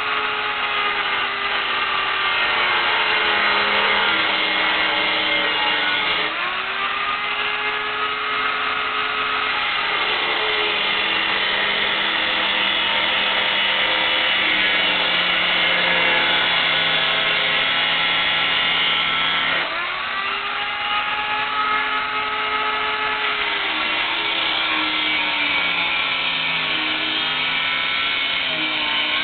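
Handheld power tool with an abrasive cut-off wheel grinding through the steel of a 1995 Honda Prelude's front end, throwing sparks. The motor's whine drops in pitch as the wheel bites into the metal and climbs back as the load eases, several times over, and about two-thirds of the way through it briefly lets off and spins back up.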